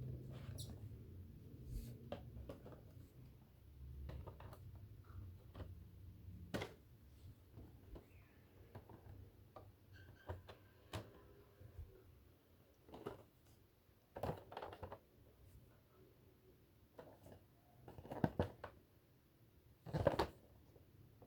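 Unboxing handling noises: scattered light scrapes and rustles, with sharper clicks and knocks every few seconds, the loudest two near the end.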